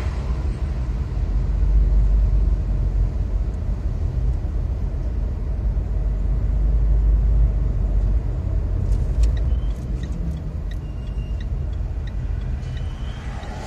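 Steady low rumble of a car driving on a city road, heard from inside the cabin: engine and tyre noise, easing a little toward the end. There are a few faint clicks about two-thirds of the way through.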